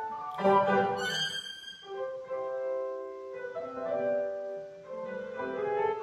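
Violin playing a slow melody of long held notes over keyboard accompaniment.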